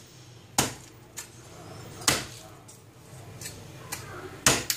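Meat cleaver chopping through roasted pork with crackling skin onto a wooden chopping board: a handful of sharp chops at uneven intervals, two in quick succession near the end.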